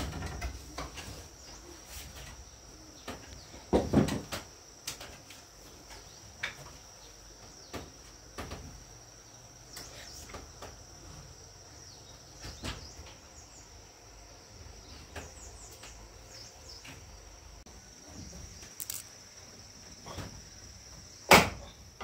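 A steady, high-pitched drone of insects, with scattered knocks and clunks of objects being handled. The loudest come about four seconds in and near the end.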